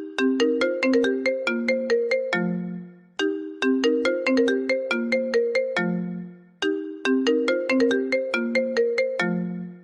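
iPhone ringtone playing on a loop: a short melody of quick, sharply struck notes that ends on a low held note fading away, the phrase starting over about every three and a half seconds.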